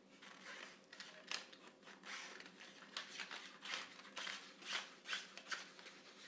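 A run of short scraping strokes on a wooden board, about ten of them in uneven rhythm, as something is worked by hand along the board's edge.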